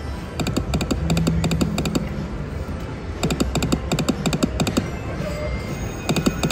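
AGS video slot machine spinning its reels over and over: bursts of rapid electronic ticking as the reels spin and stop, a new burst every second or two, over a steady background hum.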